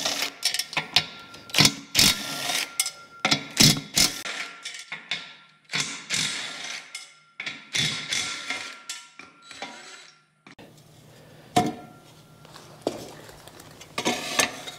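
A cordless power driver with a socket runs in short bursts, unbolting a Mack truck's cooling fan from its old fan clutch. Metal clanks and knocks come from the bolts and the fan hub, and there is a loud clank about 11 s in.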